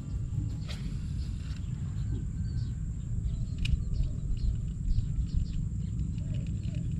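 Wind rumbling on the microphone outdoors, with scattered short bird chirps over it.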